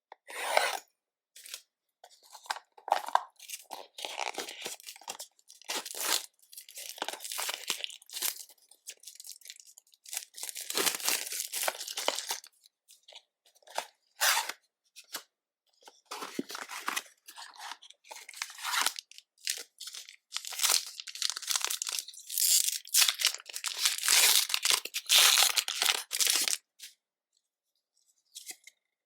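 Pokémon card packaging, foil booster packs and plastic wrap, being torn open and crinkled by hand in irregular crackly bursts.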